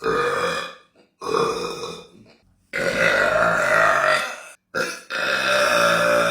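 A young woman belching loudly, one burp after another: two shorter ones, then two long drawn-out, pitched belches of about two seconds each, with a brief one between them.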